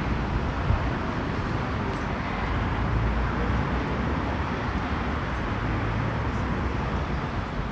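Steady low rumble of motor vehicles with a constant hum and no distinct events.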